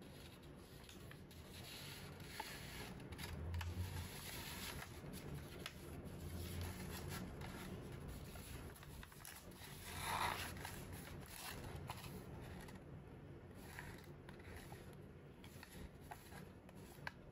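Origami paper being handled and folded: faint, intermittent rustling and scraping of the sheet, with a louder crinkle about ten seconds in.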